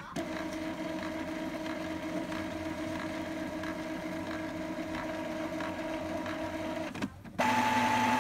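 Epson L3150 inkjet printer's internal motor running steadily during a print-head cleaning cycle. It stops briefly about seven seconds in, then starts again louder and at a different pitch.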